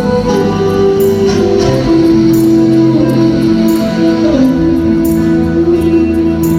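Rock band playing live: a lead guitar holding long notes that bend in pitch, over bass and drums with regular cymbal hits.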